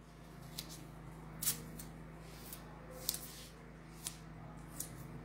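Faint handling noises from hands moving things on a table: about five short, crisp ticks and rustles spread through, over a steady low hum.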